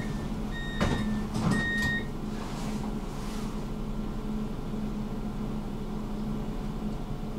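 Inside a stopped light-rail tram: a steady low electrical hum from the tram's equipment, with two short high beeps and a few knocks in the first two seconds.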